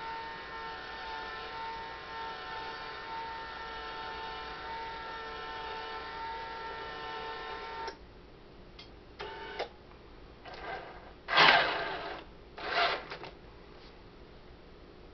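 Small geared electric motor of an RC truck's dump-bed mechanism whining steadily as the bed lowers, cutting off sharply about eight seconds in. Then several short bursts of the track drive motors and rattling tracks as the tracked model turns, the loudest about eleven seconds in.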